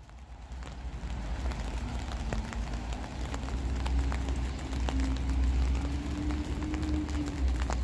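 Outdoor street ambience: a steady low rumble, a distant engine humming and slowly rising in pitch through the middle, and scattered faint ticks.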